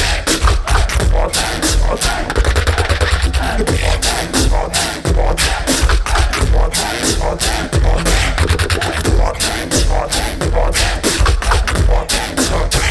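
Live beatboxing: a fast, dense rhythm of sharp snare and hi-hat sounds over a heavy bass line, with no break.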